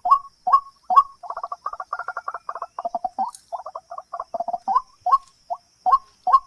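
A bird calling in a steady series of short calls, a little over two a second, breaking into a fast chattering run about a second in before the evenly spaced calls resume near the end.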